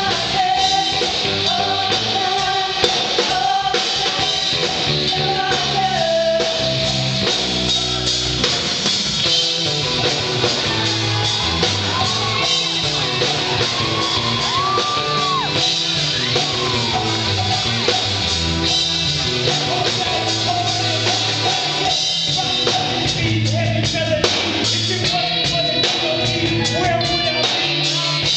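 A live rock band playing: electric guitar, drum kit and keyboard, with sung and shouted vocals over a steady beat.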